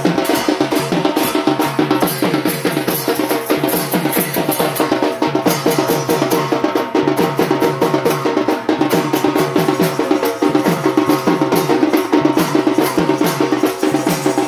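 Music with fast, even drumming over steady held tones.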